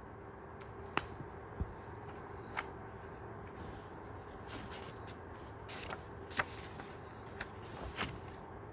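Scattered soft clicks and short paper rustles from a picture book being handled and its pages turned, over a faint steady hum.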